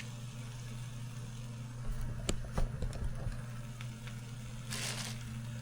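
A few light taps and clicks as burger toppings (tomato and onion) are laid on, over a steady low hum, with a short rustle near the end.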